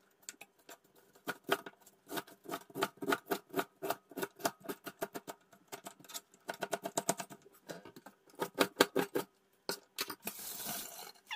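Kitchen knife chopping cabbage on a plastic cutting board: quick runs of sharp chops, several a second, broken by short pauses. About ten seconds in, a brief rushing noise lasting about a second.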